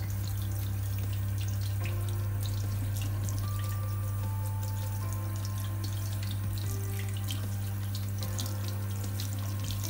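Water running from a bathroom tap into a sink, with a soft toothbrush scrubbing a stone cluster under the stream. A steady low hum sits beneath the water.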